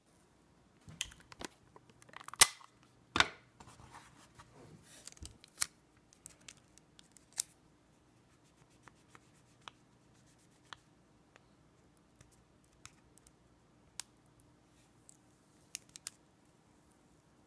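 Fingers handling a Samsung Galaxy S7 and a fingernail picking at the heart rate sensor cover on its glass back: scattered sharp clicks and taps. A cluster of louder clicks comes in the first few seconds, then sparse light ticks follow.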